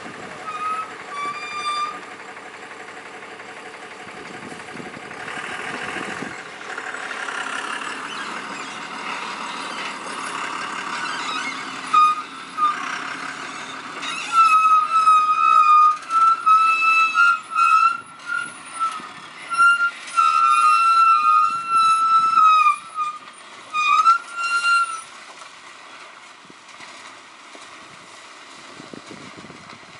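Heavy goods truck running on a rough dirt road, with a horn giving two short honks near the start and then a long series of short and long honks from about halfway through.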